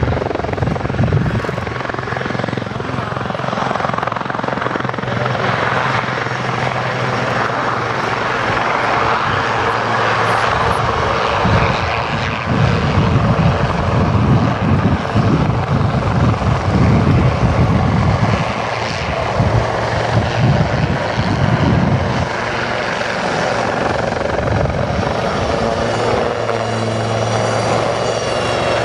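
A pair of Westland Lynx helicopters flying a display, with continuous rotor blade chop and engine drone. It grows louder through the middle as they pass nearer, then eases a little.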